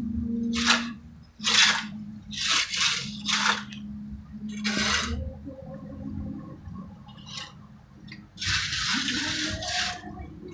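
Steel trowel spreading and scraping wet cement render onto a concrete-block wall, in a series of short scraping strokes with one longer stroke near the end. A steady low hum runs underneath.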